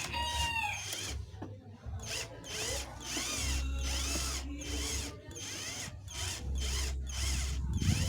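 A power tool driving screws, running in two short spells of a second or more each, with clicking from the tool and fasteners.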